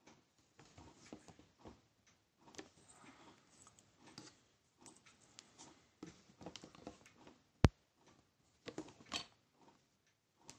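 Hands handling things at close range: scattered soft rustles, knocks and taps, with one sharp click about three-quarters of the way through, the loudest sound.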